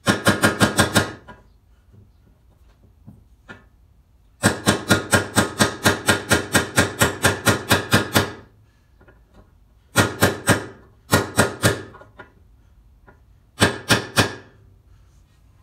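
Hammer striking a deep socket used as a driver, punching a new bearing into the lower-unit gearcase of a 1963 Johnson 40 hp outboard until it seats. Quick runs of sharp metallic taps, about five a second: a short run at the start, a long run of about twenty in the middle, and three short runs near the end.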